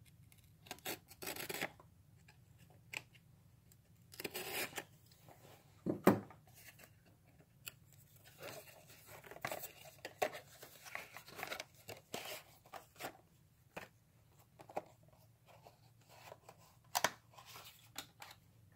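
Packaging of a small diecast model car being handled and opened: bursts of tearing and rustling mixed with small clicks and scrapes, and a sharp knock about six seconds in.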